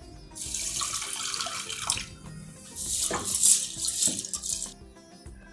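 Water poured from a plastic jug into a steel pot of toor and moong dal and swished by hand to rinse the lentils, in two spells of splashing about two seconds each.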